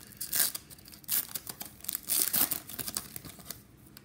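A hockey card pack wrapper being torn open and crinkled by hand, in a few short rips that die down near the end.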